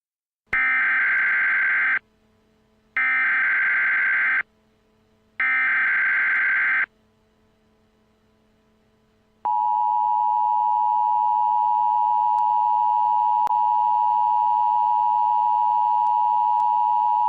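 Emergency Alert System tones. First come three short bursts of the SAME digital data header, each about a second and a half long. After a pause of two or three seconds comes the steady two-tone attention signal, about eight seconds long. The header introduces an Emergency Action Notification.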